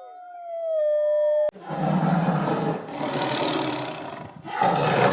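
A held, wavering howl-like call that cuts off abruptly about one and a half seconds in, then a camel's loud, rough roaring grumble in long stretches with brief breaks.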